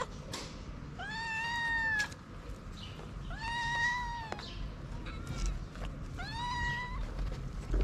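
Stray cat meowing: three long meows a couple of seconds apart, each rising in pitch at the start and then held.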